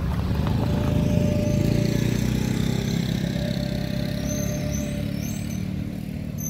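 A road vehicle's engine rumbling past, loudest about a second in and slowly fading.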